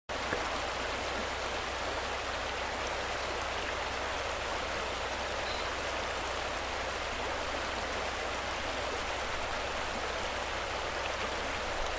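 Steady outdoor background hiss with a low hum underneath, unchanging throughout.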